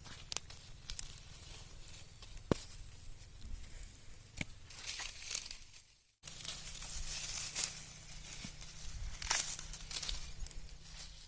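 Dry groundnut plants rustling and crackling, with scattered sharp snaps; the sound breaks off briefly about six seconds in and then resumes.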